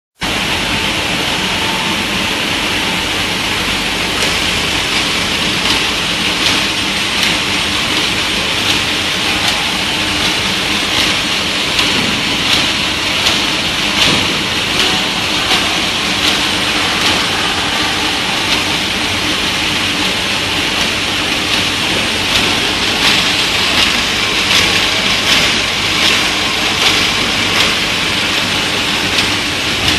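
Automatic sleeve labeling machine and its bottle conveyor running: a steady, hissing mechanical din with frequent light, irregular clicks and knocks.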